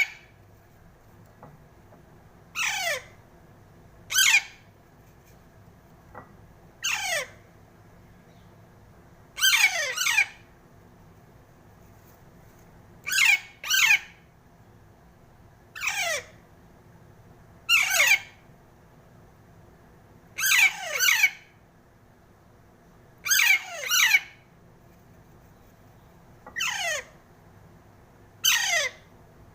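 Pet parrot squawking: a dozen or so short, harsh calls every two to three seconds, some in quick pairs, each falling in pitch.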